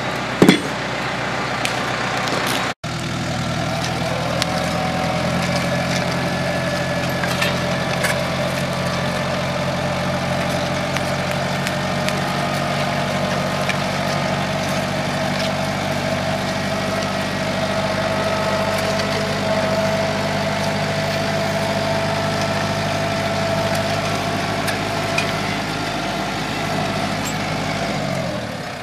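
Compact tractor engine running steadily as it pulls a rear-mounted pair of disc hillers through loose soil, with a held whine over the engine that rises slightly in pitch. A sharp click comes near the start, before the engine sound begins.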